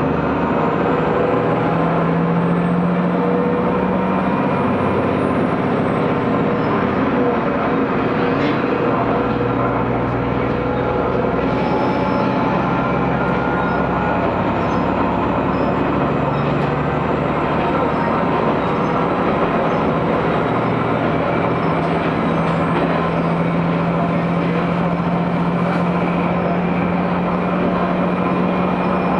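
Aizu Railway AT500-type diesel railcar running between stations, heard from inside the cabin: a steady diesel engine drone over wheel-and-rail rumble. The engine note sinks a little about a third of the way through, then rises again and holds.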